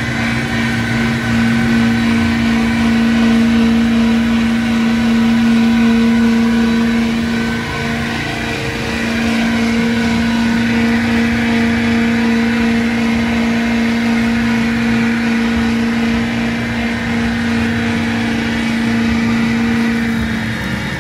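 Big lifted trucks' engines held at high, steady revs during a truck tug-o-war pull, with a brief dip in pitch and level about eight seconds in.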